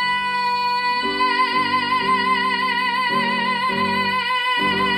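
A woman holding one high sung note, steady at first and then with vibrato. Chords from an accompanying instrument come in about a second in and change several times.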